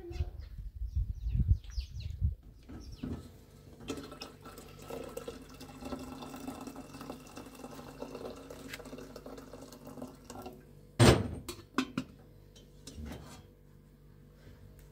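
Water poured into a stainless steel kettle, filling it with a steady running splash. Near the end comes one loud sharp metal clank, followed by a couple of lighter knocks. The first couple of seconds hold low rumbling thumps.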